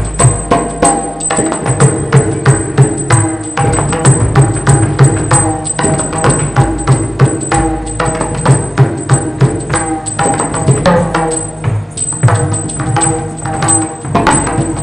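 Yakshagana ensemble music: fast, dense drum strokes from the chande and maddale with metal hand cymbals, over a steady sustained drone.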